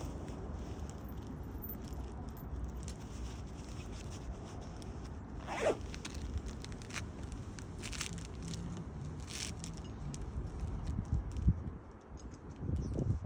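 A zip-like rasp about five and a half seconds in, falling in pitch, then a few short, sharp scrapes, over a steady low rumble of wind on the microphone.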